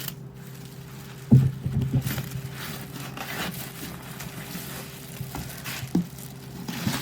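Packaging and the boxed oven being handled during unboxing: a knock about a second in, then crinkly rustling, and another knock near the end, over a steady low hum.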